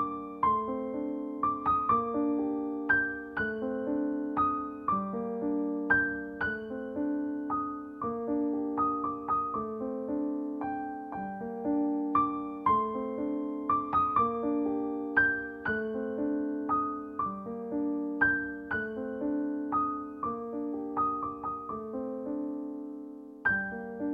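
Solo piano music: a melody of struck notes over repeated chords, each note ringing and fading.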